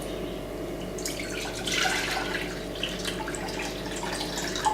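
Water running and splashing into a saucepan, unevenly, with a few small clinks.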